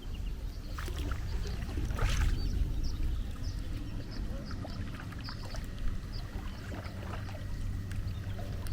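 Canoe being paddled: water splashing around the paddle and hull, with scattered small knocks, over a steady low rumble.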